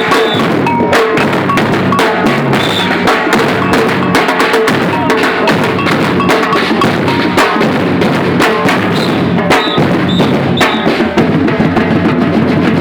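Batucada drum ensemble playing a dense, steady samba rhythm, with deep bass drums under rapid snare drum strokes.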